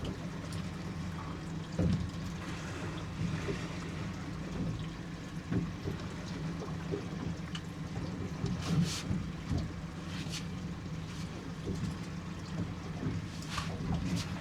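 Choppy sea sloshing and slapping against a small boat's hull, over a steady low hum, with occasional short knocks.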